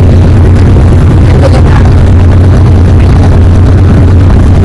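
Heavy tipper truck's engine running with a steady low drone.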